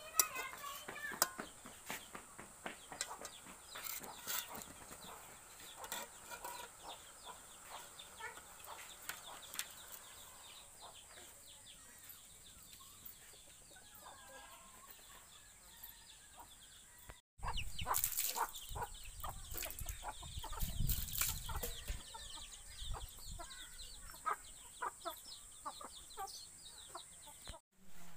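A steel ladle clicking and scraping against a wok at the start, then chickens clucking in the background. A louder stretch with low rumble follows in the later part.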